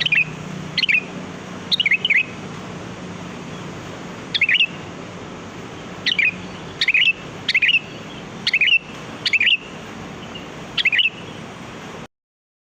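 Sooty-headed bulbul calling: short, bubbly phrases of two or three quick notes, about ten phrases in all, over a steady background hiss. The sound cuts off near the end.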